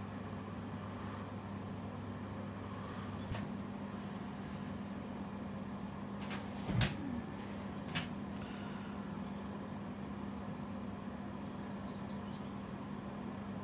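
Steady low electrical hum, with a few light clicks and taps of small parts being handled near the middle, the loudest about halfway through.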